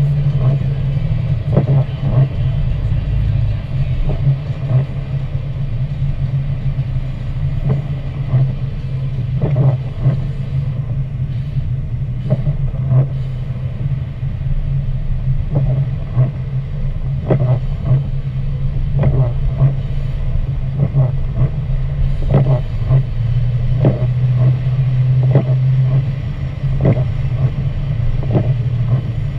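Steady low drone of a car's engine and tyres heard inside the cabin while driving on a wet road, with irregular short taps scattered throughout.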